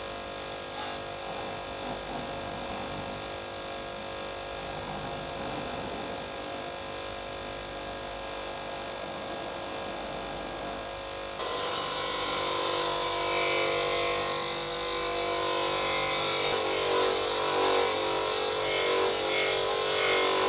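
Bench grinder's wire wheel spinning with a metal tin pressed against it: a steady motor hum under the harsh scratching of wire bristles on sheet metal. The scratching grows louder and harsher about halfway through.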